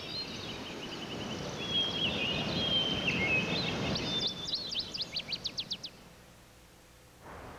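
Wild birds singing: chirps and trills, then a quick run of descending notes around five seconds in, over a low rushing noise that stops abruptly about four seconds in.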